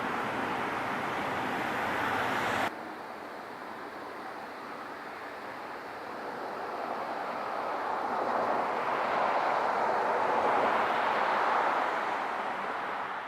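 Steady rushing vehicle noise without a clear pitch. It drops abruptly to a quieter rush about three seconds in, then swells again and fades out at the end.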